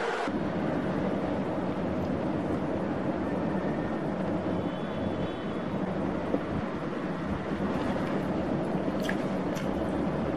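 Steady low background noise with no clear source, with a few faint light clicks near the end.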